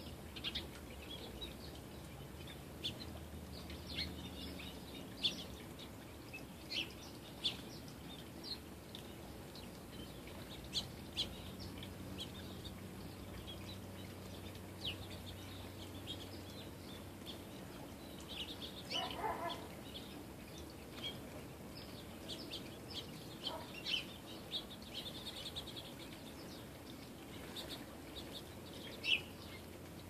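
Small songbirds chirping, many short high calls scattered throughout, with denser bursts of calling past the middle. A faint steady low hum runs underneath.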